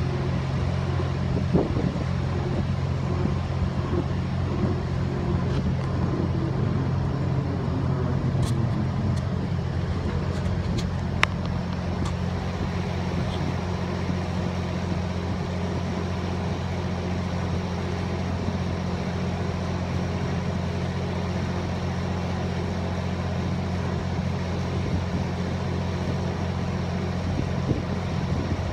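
Lift-bridge span machinery running with a steady low drone and hum while the lift span is lowered to close the deck. A couple of faint ticks come about a third of the way in.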